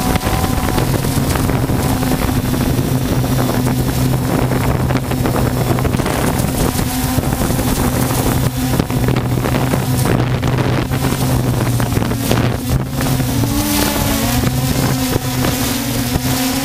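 Multirotor drone's motors and propellers humming steadily, heard from the drone's own camera, with wind noise on the microphone. The hum wavers in pitch briefly a few seconds before the end.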